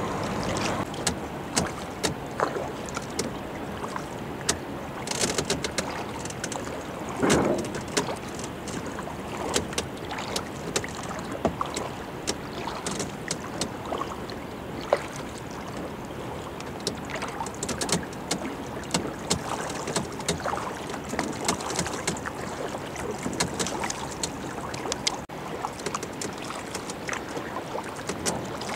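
Kayak paddling on calm water: irregular splashes and drips from the paddle blades, over a steady wash of water along the hull.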